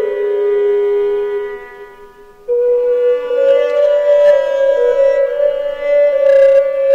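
Background early music led by a woodwind instrument playing long held notes. One phrase dies away about two seconds in, and a new one starts abruptly half a second later.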